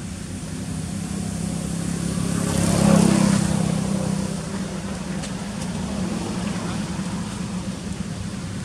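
A motor vehicle's engine running with a low steady hum that swells to a peak about three seconds in and then fades back.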